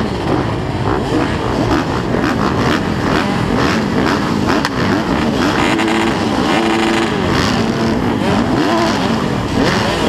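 Several 250 motocross bikes revving hard, their overlapping engine notes climbing and dropping as they accelerate and shift gears, with the nearest bike's engine the loudest.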